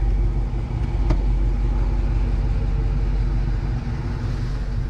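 Dodge R/T's 5.7-litre Hemi V8 idling steadily, with one sharp click about a second in as a car door latch is opened.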